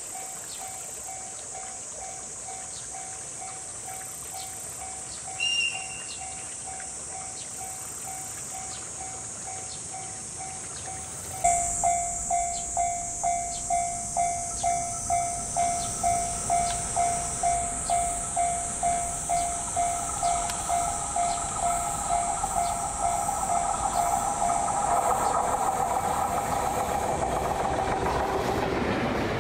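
Level-crossing alarm bell ringing steadily at about two strikes a second, faint at first and much louder from about eleven seconds in. A short high chirp comes about five seconds in. Over the last few seconds the rumble of an approaching JR EF510 electric locomotive and its sleeper coaches rises as they pass close by.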